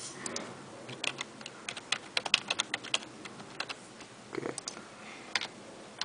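Typing on a computer keyboard: a run of quick, irregular key clicks, densest for a few seconds after about a second in, then a few scattered taps near the end.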